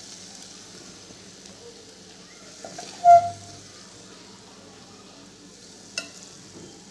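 A steel ladle scooping saucy soya chilli out of a stainless steel pot, over a steady low sizzle from the hot pan. About three seconds in the ladle strikes the pot with one short ringing clink, and a sharp tap follows near the end.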